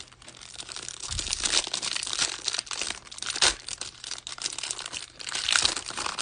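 The clear plastic cello wrapper of a hanger pack of basketball trading cards is torn open and crinkled by hand. It crackles steadily, with sharper rips about halfway through and near the end.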